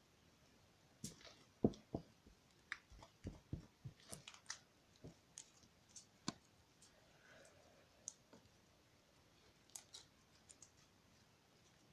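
Homemade glue and baking-soda slime being stretched and pulled between the fingers, giving faint, irregular sticky clicks and pops. They come thickly for a few seconds soon after the start, then sparsely, with a short cluster near the end.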